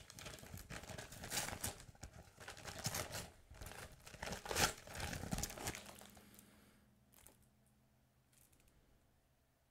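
Gift wrapping paper being torn and crinkled as a present is unwrapped by hand, in quick ripping and rustling strokes that stop about six seconds in.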